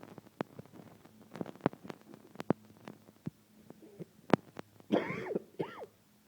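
Scattered light clicks and knocks of small metal parts being handled, then a brief cough-like vocal sound about five seconds in.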